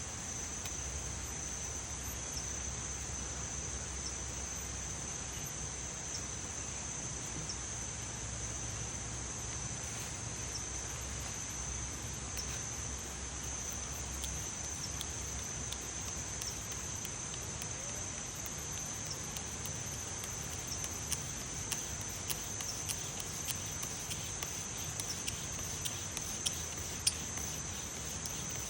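Crickets trilling steadily in one continuous high-pitched note. In the last third, scattered small sharp ticks and crackles come more and more often.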